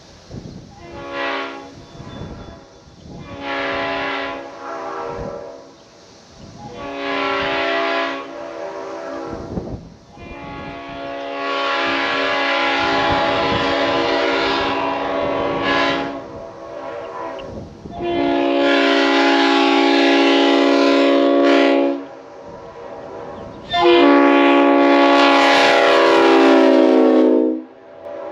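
Leslie RS5T five-chime train horn sounding a series of blasts: about three short ones, then a long blast of about five seconds and two more of three to four seconds each. The chord sags in pitch as the last blast cuts off.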